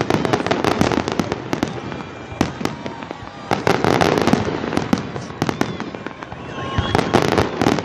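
Fireworks display: rapid volleys of shell bursts and crackling bangs that come in waves, densest about a second in, around four seconds, and again near the end.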